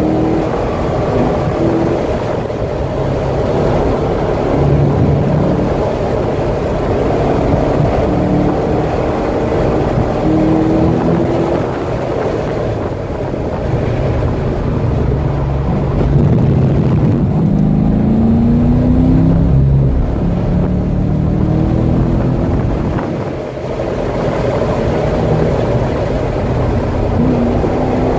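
Chevrolet Corvette C6 Z06's 7.0-litre LS7 V8 running hard at track speed, its pitch climbing again and again as it accelerates, with a short drop in loudness about three-quarters through; wind and road noise underneath.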